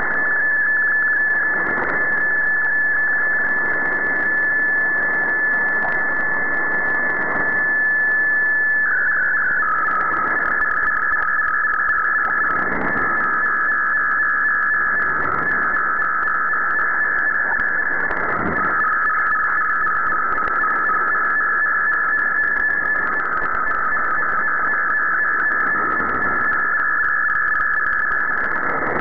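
MFSK digital picture signal from the Shortwave Radiogram broadcast, received on a shortwave radio. A steady tone about nine seconds in breaks into a fast warble stepping between two pitches as the image is sent. Underneath is shortwave static hiss that swells and fades.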